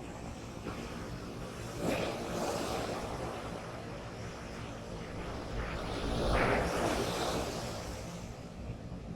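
High, rough surf breaking and washing on a beach, with a low rumble of wind on the microphone. The wash swells up about two seconds in and again, louder, around six seconds in.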